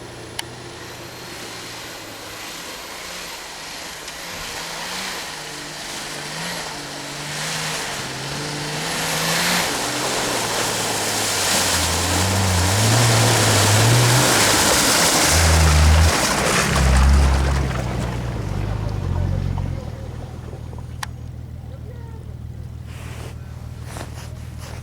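Off-road 4x4 engine revving up and down as the vehicle pushes through mud and water, with a rising rush of splashing and spray. It is loudest about halfway through, then eases off to a steady run near the end.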